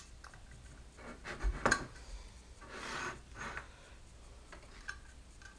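Small metal hardware being handled: screws, washers and V-wheel bearings clicking against each other and against a metal plate as they are fitted, with a few sharp clicks between one and two seconds in and a softer rub around three seconds.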